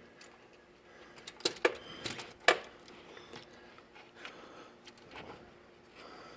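Scattered small clicks, scrapes and light knocks of a reverse cable's threaded plastic nut and fittings being worked by hand, with the sharpest knock about two and a half seconds in.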